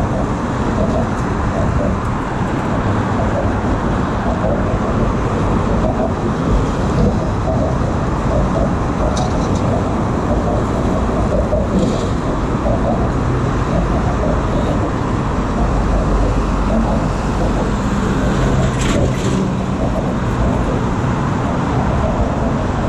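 Steady traffic noise from cars and trucks passing on a busy multi-lane road, with a heavier vehicle's engine humming past about eighteen seconds in.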